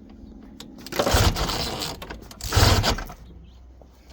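Recoil starter rope pulled twice on a 1971 Ski-Doo Olympic snowmobile's two-stroke engine, each pull a short whirring crank of the engine. The engine turns over but does not fire.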